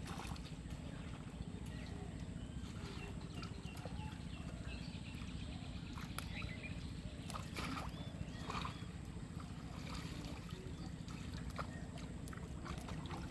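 Pond water sloshing and splashing, with scattered sharp clicks and a few short bird chirps over a steady low rumble.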